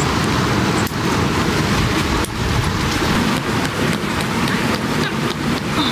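Strong, gusty wind buffeting the microphone as a loud, steady rushing noise, with a couple of faint knocks about one and two seconds in.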